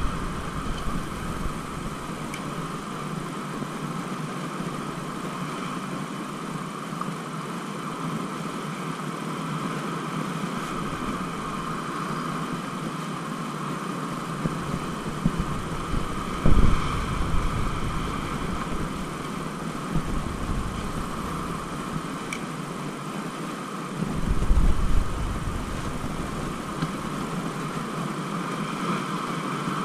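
Wind blowing across an action camera's microphone: a steady hiss with low rumbling buffets in gusts, the strongest about a third and four-fifths of the way through.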